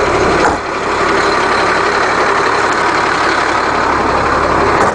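Rear-mounted Caterpillar 300-horsepower turbo diesel of a Fleetwood Bounder diesel pusher running steadily at idle, with a brief dip in level about half a second in.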